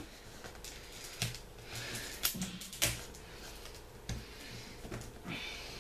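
Scissors snipping and hands working at a parcel's wrapping: scattered, irregular clicks and small knocks with light rustling.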